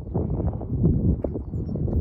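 Hoofbeats of a ridden Hanoverian mare moving over sand arena footing: a quick, uneven run of dull thuds.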